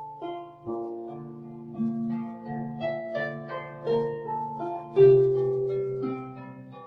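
Harp music: a slow, gentle piece of plucked notes and arpeggiated chords over a low bass, with a fuller chord struck about five seconds in.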